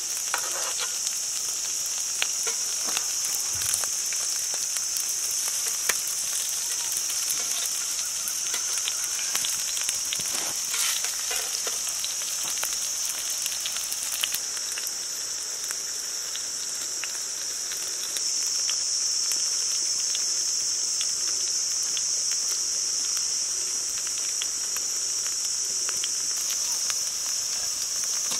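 Cutlets shallow-frying in oil on a flat iron pan (tawa): a steady sizzle with scattered sharp crackles and pops from the oil, getting a little louder about two-thirds of the way through.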